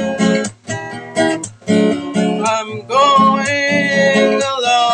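Acoustic guitar with a capo, strummed chords in a steady rhythm; about three seconds in, a man's voice joins, singing a long held note over the strumming.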